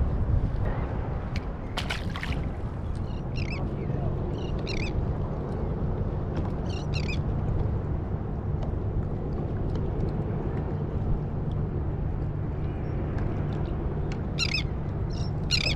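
Steady low rumble of wind and water on the microphone out on the water, with several short high bird calls scattered through it and a single sharp click about two seconds in.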